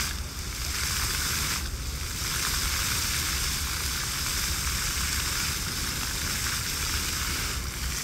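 Fountain jets spraying and falling water, a steady hiss of spray that dips briefly about two seconds in and again near the end as the jets change.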